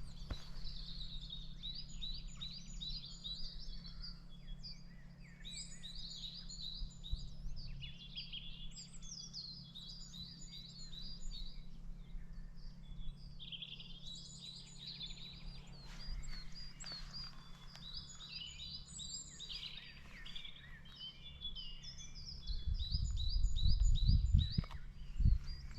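Chorus of several songbirds singing at once: overlapping chirps, trills and short whistled phrases, high-pitched and continuous. Near the end a low rumble rises over it briefly.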